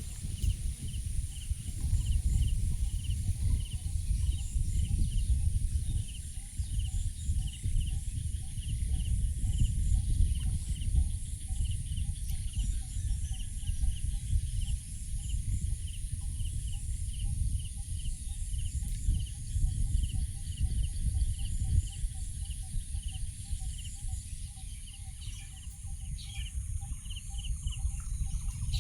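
Outdoor ambience: a low rumble of wind on the microphone is the loudest sound, and through it runs a rapid, regular series of short, high animal chirps over a steady high-pitched drone.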